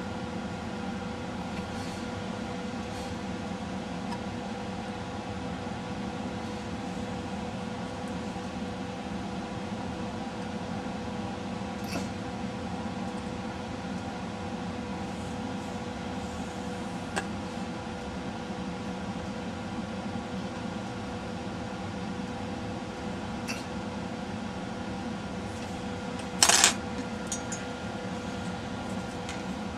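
Steady mechanical hum with a few constant tones running throughout, with scattered faint clicks of small tools on the workbench and one short, louder clatter near the end as the tweezers and soldering iron are put down.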